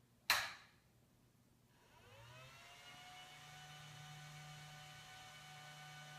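A click, then the Dell 5324 network switch's stock cooling fans spinning up at power-on: a whine that rises in pitch for about a second and settles into a steady whir with a low hum. These are the original fans, which are a little loud.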